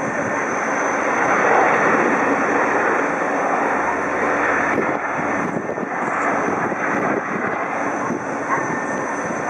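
Jet airliner engines running as the aircraft taxis: a steady, even rush of engine noise.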